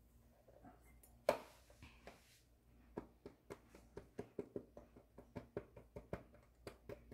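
A sharp knock about a second in, followed by a brief scrape, then a steady run of light, quick taps, about three to four a second, as reptile food is stirred with water in a small container.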